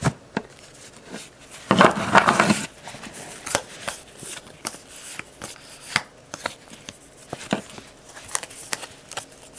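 Baseball trading cards being handled: a run of small flicks and clicks as cards are slid off the stack one after another, with a longer rustle of cards rubbing against each other about two seconds in.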